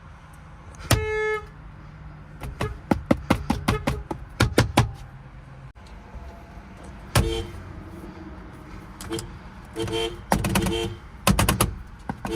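Nissan-made car horn sounded in short honks: one blast about a second in, a quick run of very short taps, then several short two-note toots near the end.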